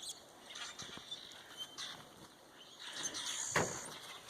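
Snow sliding off a building roof, heard as a sudden rush ending in a sharp thump about three and a half seconds in. Birds chirp faintly throughout.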